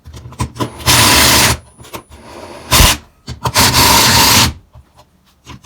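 Cordless drill/driver running in two short steady bursts, driving screws that mount an electrical outlet in its box, with a sharp click between the two runs.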